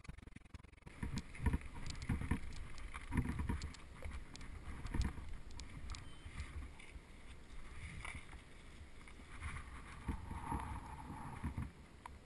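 Mountain bike rolling over a gravel path, heard through an action camera's microphone: a low, uneven rumble from wind buffeting and tyres on gravel, with scattered clicks and knocks from stones and the bike rattling. It dies down near the end as the bike comes to a stop.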